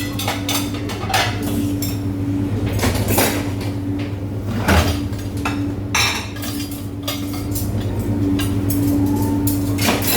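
Dishes, pots and cutlery clattering and clinking in irregular knocks as they are handled and stacked in dishwashing, over a steady low machine hum.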